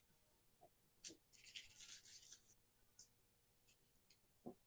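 Faint scraping and rubbing of dough being worked on a silicone baking mat with a wooden rolling pin and a knife. There are a few light knocks, and a scratchy scraping about a second in that lasts around a second and a half.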